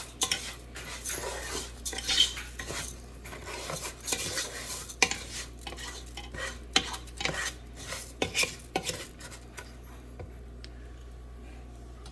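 Rice being stirred in melted butter in a pot: a utensil scraping and clinking against the pot, the stirring stopping about nine or ten seconds in.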